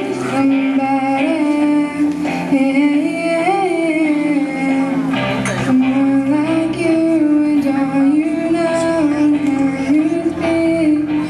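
A young girl singing a slow melody into a handheld microphone over an instrumental accompaniment, holding long notes that bend gently in pitch.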